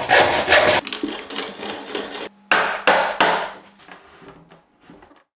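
Handsaw cutting through a wooden board: one long rasping stroke at first, then three quicker strokes a little after two seconds in, fading out near the end.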